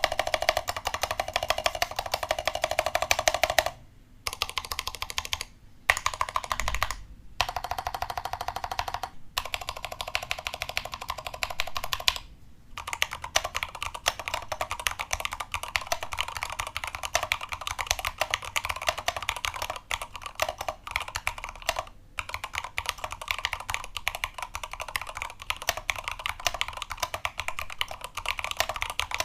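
Fast, continuous typing on an all-aluminium-case mechanical keyboard with Cherry switches: a dense run of key clacks, broken by several short gaps in the first half and one near the end, with background music underneath.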